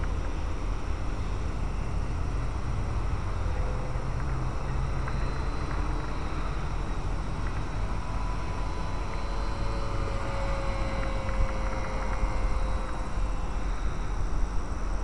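Wind buffeting and rumbling on the microphone, with the faint whine of a distant RC model plane's brushed electric motor drifting slightly in pitch as it flies.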